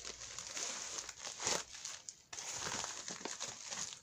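Plastic packaging crinkling and rustling in uneven spurts as a mailer bag is handled and clear zip-lock bags are pulled out of it, with a short pause a little after two seconds.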